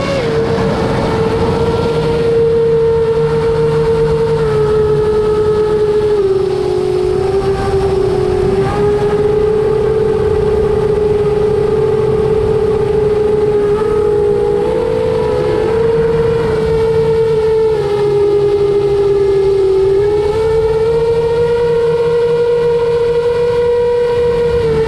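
iFlight Chimera7 FPV quadcopter's brushless motors and propellers whining in flight, the pitch sinking and rising a little as the throttle changes.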